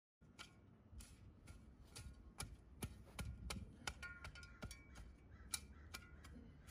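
Faint, irregular clicks and light knocks, roughly one or two a second, from a shovel being worked in the soil.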